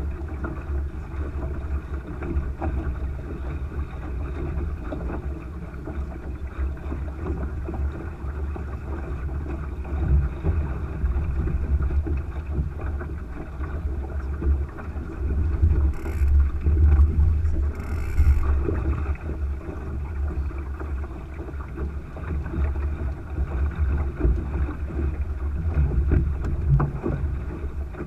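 A Thistle sailing dinghy under sail: wind buffeting the microphone with a steady low rumble over the wash of water along the hull. There are two short hissing bursts about halfway through.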